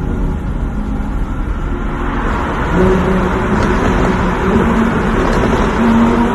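Lamborghini Aventador's V12 engine and exhaust accelerating in a tunnel. It gets louder about three seconds in, with the pitch rising in steps as it revs up through the gears.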